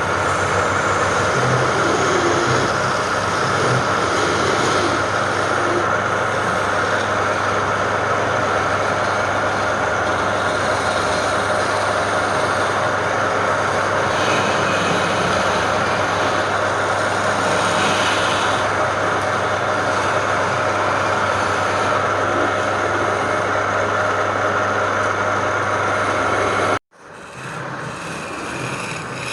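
Wood lathe running steadily with a constant motor hum and a high whine. The sound cuts off abruptly near the end.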